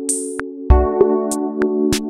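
Electronic background music: sustained synthesizer chords over a drum-machine beat with a deep kick about two-thirds of a second in and sharp hits between.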